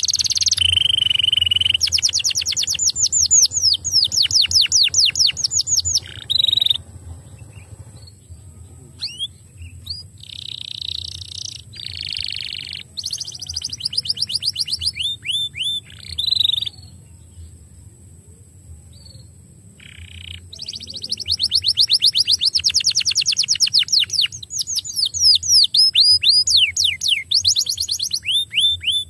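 Domestic canary singing: fast trills of rapidly repeated, downward-sweeping high notes in runs of several seconds, broken by short buzzy notes and pauses between phrases. The longest trill comes in the last third.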